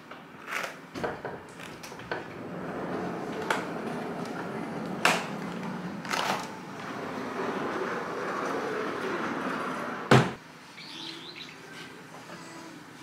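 Folding glass patio doors being unlatched and pushed open: a series of clicks and knocks over a steady rush of noise, with one loud thump about ten seconds in. Faint bird chirps follow near the end.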